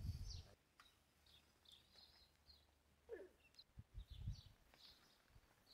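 Near silence with faint, scattered bird chirps and one falling call about three seconds in, plus a few soft low thumps at the start and around four seconds in.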